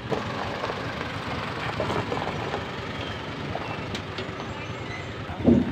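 Open-air market ambience: a steady background of crowd chatter and bustle with faint scattered voices and a few clicks, and a short loud voice near the end.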